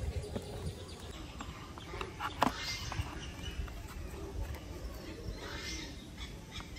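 Hard plastic toy jeep parts and wheels being handled and fitted by hand: scattered clicks and knocks of plastic on plastic, the loudest about two and a half seconds in.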